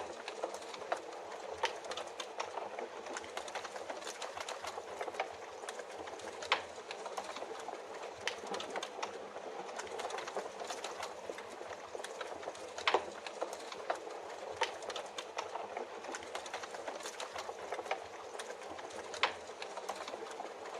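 Wood fire crackling, with irregular sharp pops and snaps over a steady hiss of rain.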